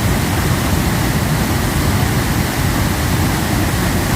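Waterfall pouring over old concrete watermill remnants: a loud, steady rush of water with a deep rumble underneath.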